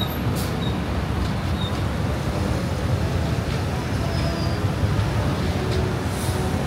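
Steady low rumble of city street traffic, with faint voices in the crowd and a few brief clicks.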